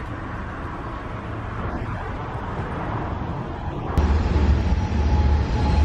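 Outdoor road-traffic noise: a steady hiss of passing vehicles that grows slightly louder. About four seconds in it switches abruptly to a louder, lower rumble with a faint steady tone.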